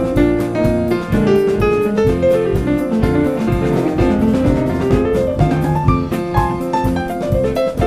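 Live band playing upbeat jazzy music: piano lines over bass guitar and drum kit with a steady beat.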